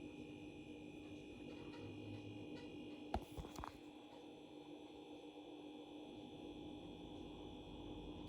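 Faint steady electrical hum of room tone, with a couple of small clicks about three seconds in.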